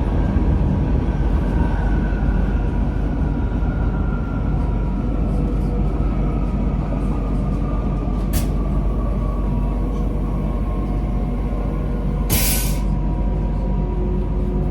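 Passenger train running, heard from inside the carriage: a steady low rumble of wheels on rails with a high whine that slowly falls in pitch. A sharp click comes about eight seconds in, and a brief loud hiss about twelve seconds in.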